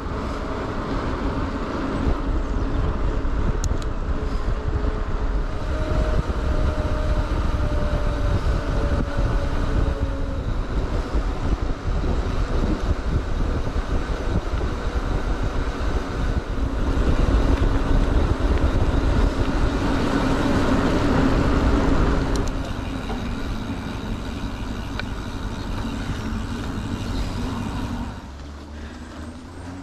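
Wind rushing over the microphone and mountain bike tyres rumbling on tarmac while riding along a road. It is loudest about two-thirds of the way through, then eases, and drops further near the end.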